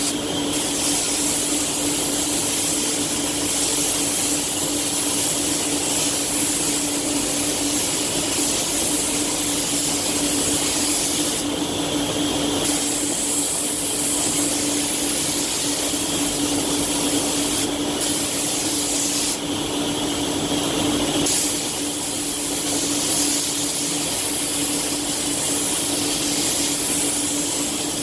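Iwata WS-400 Hakone spray gun hissing steadily as it sprays clear coat, with a steady hum underneath. The hiss changes briefly about twelve and twenty seconds in.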